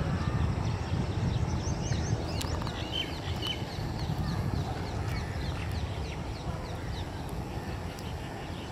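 Small birds chirping: many short, quick, falling calls, with one brief held whistle about three seconds in, over a steady low rumble that eases slightly toward the end.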